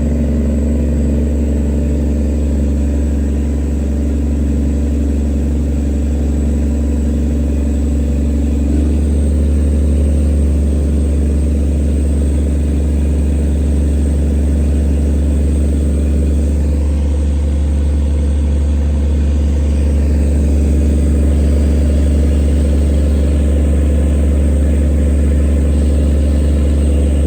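Engine of a wooden towing motorboat (river tugboat) running steadily; about nine seconds in its note changes as the throttle is shifted, then it runs on evenly.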